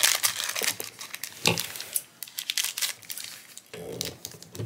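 Black foil blind-bag pouch being crinkled and torn open by hand, an irregular crackling.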